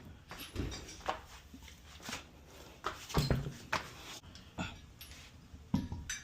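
Lug nuts and hand tools being handled during a wheel install: a run of irregular metal clicks, clinks and knocks, busiest about three seconds in.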